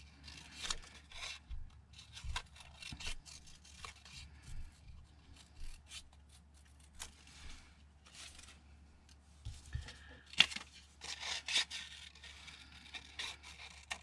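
Small scissors snipping around paper cutouts from a vintage book, an irregular run of short crisp snips with paper rustling as the sheet is turned. One louder snip comes about ten seconds in.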